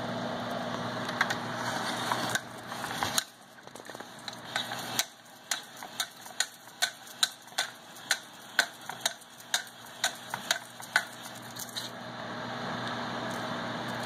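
A run of sharp clicks, about two a second, that starts about three seconds in and stops a couple of seconds before the end, over a faint steady hum.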